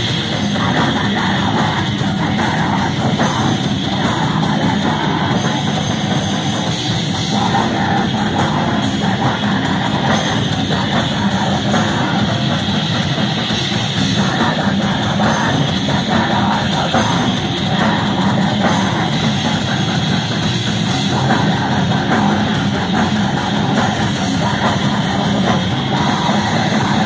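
Live heavy metal band playing loud: distorted electric guitar, bass guitar and drum kit in a dense, unbroken wall of sound, with a vocalist singing over it.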